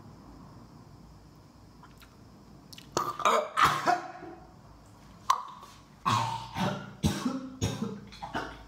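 After a few seconds of faint room tone, a man coughs and gags in a run of loud, irregular fits from about three seconds in. It is his reaction to the taste of propolis serum dripped onto his tongue.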